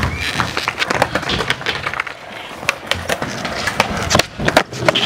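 Skateboard on hard 3D-printed wheels rolling over concrete, with repeated sharp clacks of the deck striking the ground. The heaviest clacks come a little over four seconds in.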